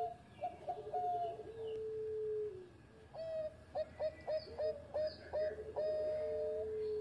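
Zebra dove (perkutut) cooing its song twice. Each phrase is a quick run of short staccato notes ending in a long held lower note that drops away at the end.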